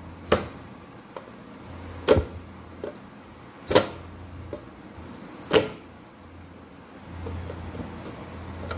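Oiled parotta dough slapped down onto a steel plate four times, sharp slaps coming every second and a half to two seconds, as the dough is stretched out thin for bun parotta.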